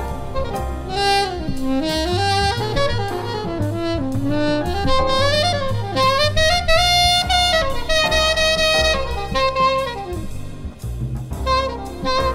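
Soprano saxophone playing a jazz solo of quick runs that climb and fall, with a long held high note about halfway through. Underneath is a backing track with drums and a low bass line.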